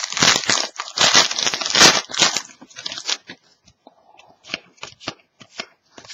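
Plastic packaging crinkling as trading cards are handled, dense for about three seconds, then giving way to a series of light separate clicks and taps as the cards are moved.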